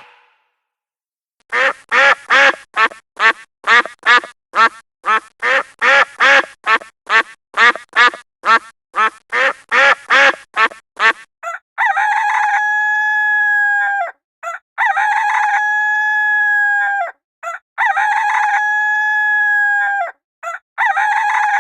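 A chicken clucking in a quick, even series of short calls, about two and a half a second, followed by a rooster crowing: three long crows of about two seconds each, with a fourth starting near the end.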